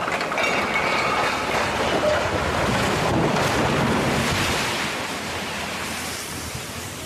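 Concrete retaining wall of an excavation collapsing: a loud rushing rumble of falling concrete, soil and rubble that eases off after about five seconds.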